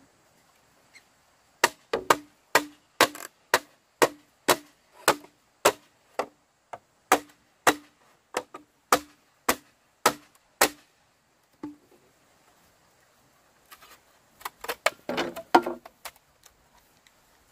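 Repeated chopping strikes with a dull thud, about two a second for some nine seconds. A single further strike follows, then a quick flurry of knocks near the end.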